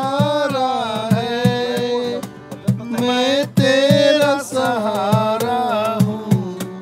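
A man singing while strumming an acoustic guitar, the strums keeping a steady rhythm under the sung melody.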